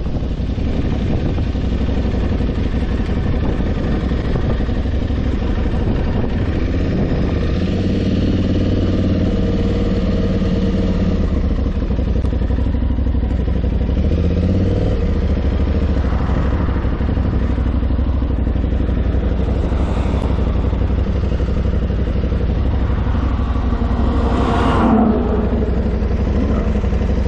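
Aprilia Tuareg 660's parallel-twin engine running steadily under way, geared with a 16-tooth front and 41-tooth rear sprocket. Its pitch shifts about halfway through, and a brief swell of noise near the end is the loudest moment.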